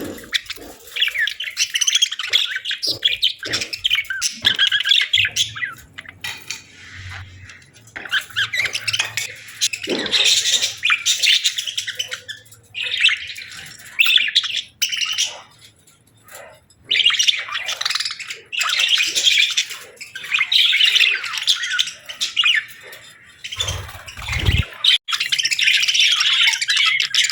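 A group of budgerigars chattering and chirping, in busy bouts of rapid high-pitched warbles and squawks broken by short lulls.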